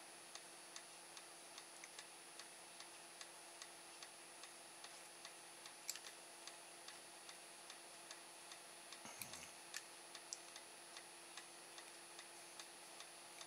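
Near silence with faint, even ticking about two and a half times a second, and a couple of louder clicks about six and nine seconds in.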